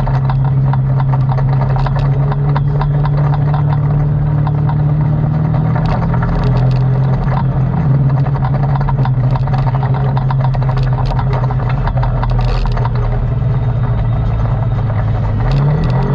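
ATV engine running at a steady pace, its pitch dipping slightly about six seconds in and climbing again just before the end, with frequent small clicks and knocks over the engine note.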